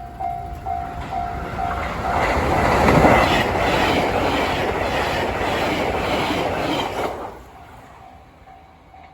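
A level-crossing alarm rings in a quick repeating ding, two to three strikes a second. From about two seconds in, a JR Kyushu 885 series 'Sonic' limited express passes at high speed, its loud rush and regular wheel clatter drowning the alarm. It cuts off about seven seconds in, leaving the alarm ringing faintly.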